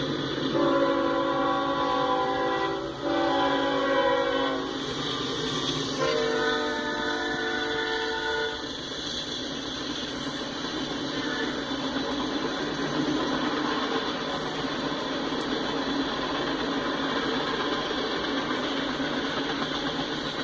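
Freight locomotive air horn sounding three blasts, the middle one shorter, as the Norfolk Southern train reaches the crossing. Then comes the steady noise of freight cars rolling past on the rails.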